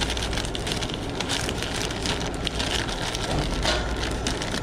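Brown paper takeout bag rustling and crinkling as hands fold and handle it, over a steady low hum.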